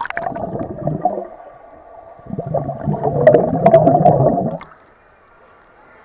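Muffled underwater rumble of children swimming: splashing, kicking and bubbling heard through the water. It starts with a sharp splash, grows heaviest from about two seconds in, and dies away near the end.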